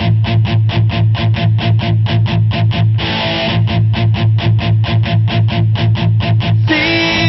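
Instrumental intro of a band song: a guitar chord rings out, then quick choppy strums at about four or five a second over a steady low bass note. The chord rings out again about three seconds in, and a held chord closes the passage near the end.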